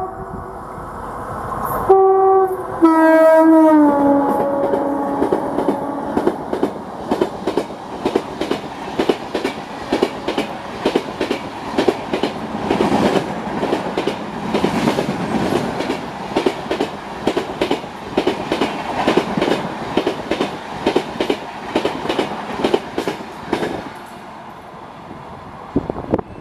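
WAP-5 electric locomotive sounding its horn twice as it runs through at speed, the second blast dropping in pitch as it passes. Then the express coaches rush by with a rapid clickety-clack of wheels over rail joints for about twenty seconds, stopping near the end.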